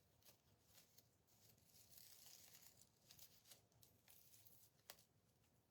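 Near silence, with faint rustling and a few small clicks as ribbon and raffia are handled.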